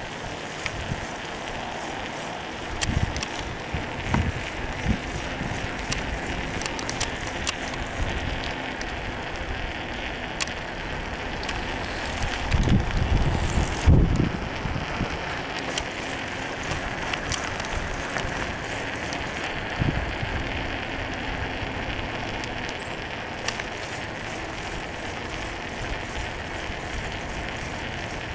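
Bicycle rolling along an asphalt path: steady tyre and ride noise with frequent small rattling clicks, and a few louder low thumps about halfway through.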